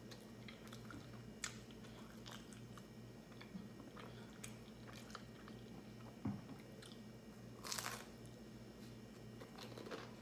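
Close-miked chewing of vegetable-topped pizza: soft crunches and small wet mouth clicks, with a louder crunch about eight seconds in, over a faint steady low hum.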